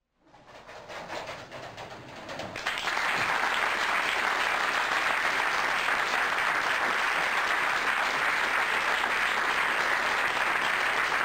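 A small theatre audience applauding: the clapping starts thinly, swells over the first few seconds, then holds as full, steady applause.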